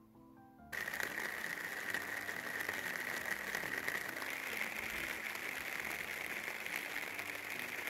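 Rain falling hard, a dense steady hiss with many small patters as it hits a wooden deck and paving, starting suddenly about a second in. Soft piano music is heard briefly before it.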